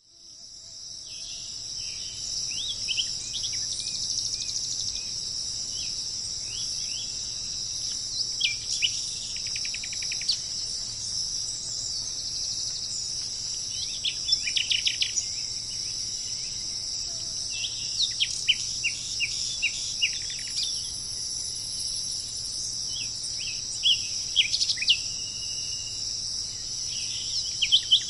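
Steady high-pitched chorus of crickets or similar insects, with birds breaking in every few seconds with short clusters of quick chirps and whistles. The sound fades in over the first two seconds.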